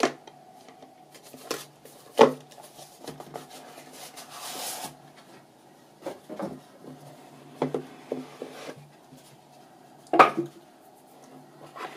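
A cardboard gift box being handled on a wooden desk: scattered knocks and taps as it is turned over, set down and its lid lifted off, with a short scraping rub about four seconds in. The loudest knocks come about two seconds in and again near the end.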